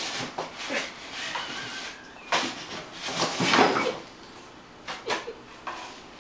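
A kitten making a series of short, irregular cries; the loudest and longest comes about three and a half seconds in.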